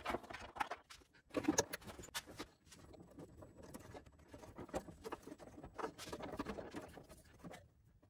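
Faint rustling and scattered small clicks of hands working wires with brass spade connectors through a rubber grommet in a car's body panel.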